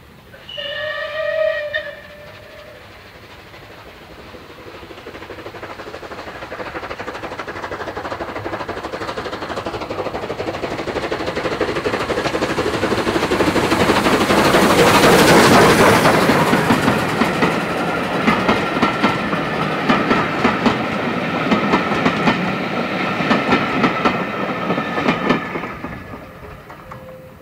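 Rebuilt Bulleid Battle of Britain Pacific steam locomotive No. 34059 sounds a short steam whistle about a second in, then draws nearer and louder with its train until it passes about halfway through. Its carriages follow with a steady clickety-clack of wheels over the rail joints, fading near the end.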